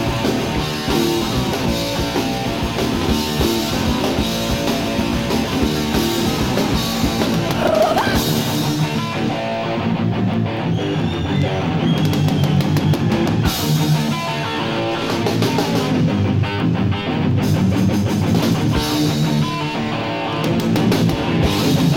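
Punk rock band playing live, an instrumental passage of electric guitar, bass and drums with no singing. About eight or nine seconds in the cymbals and kick drum largely drop away, leaving mostly strummed electric guitar.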